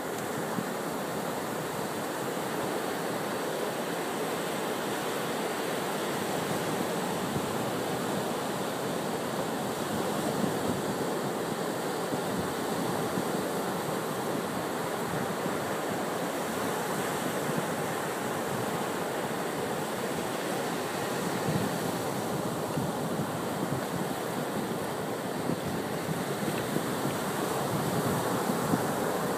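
Ocean surf washing up a sandy beach: a steady rush of breaking waves and receding water that swells and eases a little.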